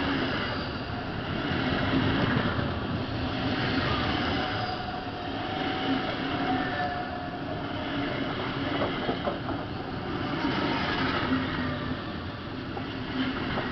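SBB passenger coaches of an arriving EuroCity train rolling slowly past into the station: a steady rumble of wheels on rail with a thin whine over it, and a few clacks over rail joints in the second half.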